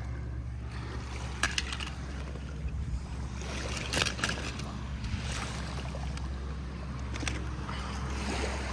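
Shallow water washing over gravel, with a steady low rumble of wind on the microphone. A few sharp clicks cut through, about one and a half, four and seven seconds in.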